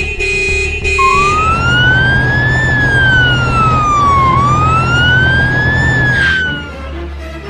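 Two short horn blasts, then an emergency-vehicle siren wailing, sliding slowly up and down in pitch twice before fading near the end.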